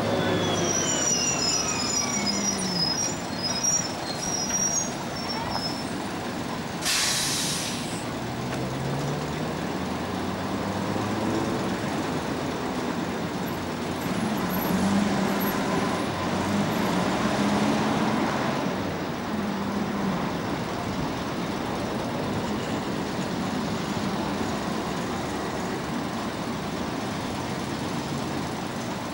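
City buses' engines running at a kerbside stop and rising in pitch as they pull away, with passing traffic; a short loud burst of hissing air about seven seconds in.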